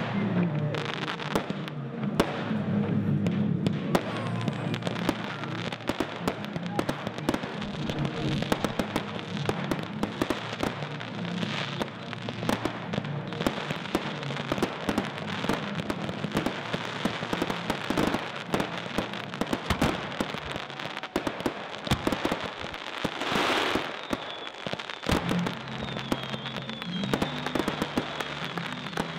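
Display fireworks going off in quick succession: a continuous run of bangs and crackling, with a brief louder rush about two-thirds of the way through.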